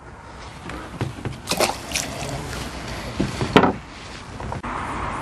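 An angler handling fishing tackle at the water's edge: rustling with several sharp knocks and clicks, the loudest about three and a half seconds in. Near the end the background changes abruptly to a steady hiss.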